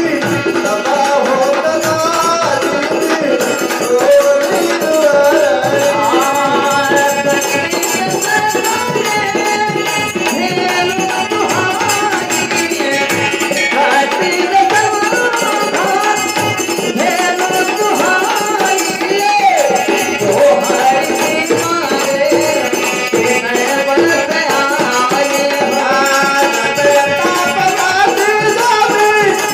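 Bagheli Ramayan folk singing: a melodic voice over continuous jingling, rattling percussion and hand-drum accompaniment.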